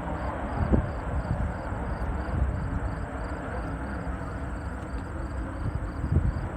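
Distant racing hydroplane engines give a steady low rumble, with wind buffeting the microphone in a couple of short thumps.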